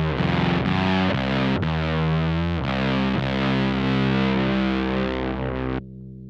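Electric guitar played through a one-knob fuzz pedal into a '69 Laney Supergroup amp, chugging a heavy, thickly distorted doom riff. Near the end the chords cut off sharply, leaving a quieter low drone.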